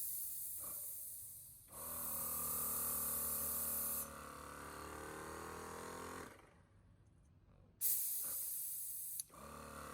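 Air hissing out of the hose of a 4-piston portable tyre compressor, and the compressor's motor starting up and running with a steady hum. It cuts out after a few seconds and starts again after another hiss near the end: the pressure switch is restarting the pump as the hose pressure drops.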